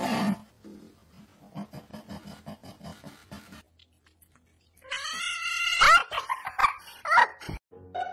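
A cat meowing loudly: one long, wavering meow about five seconds in, followed by three short ones. Before it, faint rapid ticking and rustling.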